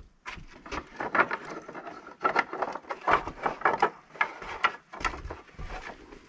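Quarter-sawn red oak tongue-and-groove flooring boards clacking and knocking against one another as an armload is gathered off a stack, with many irregular sharp knocks.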